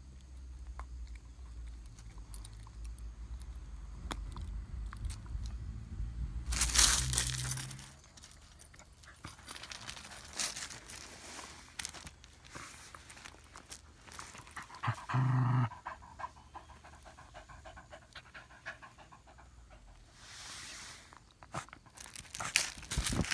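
Dog panting while it paws at a cloth towel on gravel, with rustling of the cloth and scuffing on the stones. The loudest scuff comes about seven seconds in, and there is a short low sound about fifteen seconds in.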